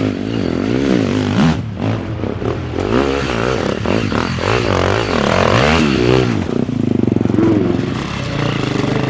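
Enduro dirt bike engine revving up and down in repeated bursts, then settling to a steadier note for the last couple of seconds.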